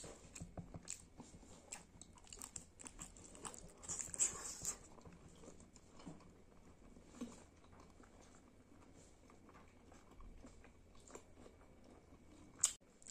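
Close-up chewing and biting of curried skin with rice: soft wet mouth clicks and smacks, a little louder about four seconds in, with one sharp tap near the end.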